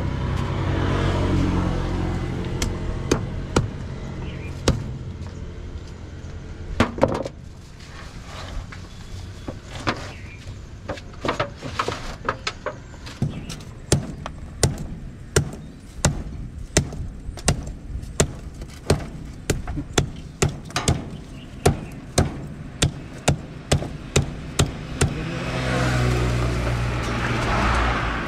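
Heavy knife chopping through a large catla on a wooden chopping block: sharp blows, sparse at first, then coming steadily about two a second. A road vehicle rumbles past at the start and again near the end.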